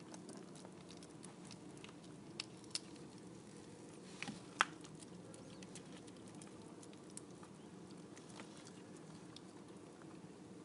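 Kittens moving about in a box: soft scratchy patter and scattered light ticks of small paws and claws, with a few sharper clicks between about two and five seconds in, over a faint steady hum.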